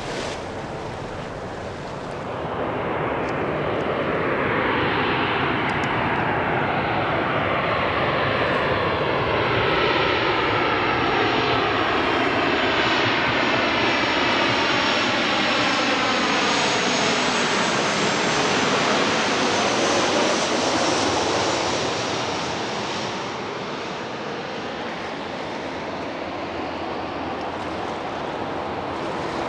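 Boeing 737-800 with its CFM56-7B turbofans on final approach, gear down, passing low overhead. The jet noise builds a few seconds in, holds loud with a whine that slides down in pitch as the aircraft passes, then fades after about twenty seconds.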